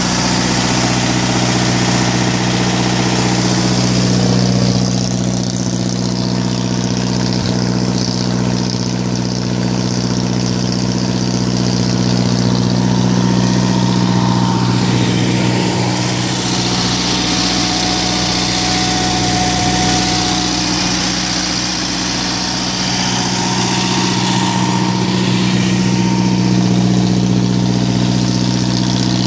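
Onan 12.5JC generator set running steadily on propane, a constant engine hum that holds one pitch throughout.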